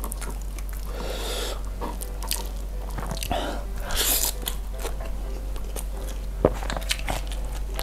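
Close-miked eating: fingers squishing rice, sambal and honey-grilled chicken, a mouthful taken by hand about four seconds in, then wet chewing with small clicks of mouth and fingers.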